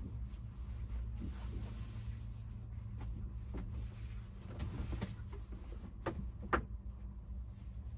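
Fabric window shades being handled and fitted inside a van cab: soft rustling and scattered light clicks and taps, with a sharper click about six and a half seconds in as a cover is pressed onto the side window. A steady low hum runs underneath.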